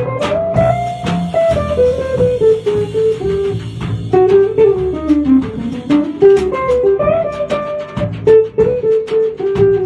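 Jazz trio playing live: a single-note guitar melody over plucked upright double bass, with a drum kit keeping time with frequent cymbal strokes.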